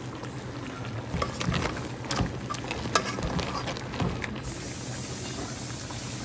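Dungeness crab pieces in the shell being tossed in a pan of sauce, the shells knocking against the pan in a run of clatters, then steady sizzling.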